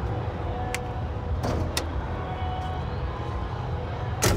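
Steady low rumble of traffic, with a few light clicks and one louder sharp knock near the end.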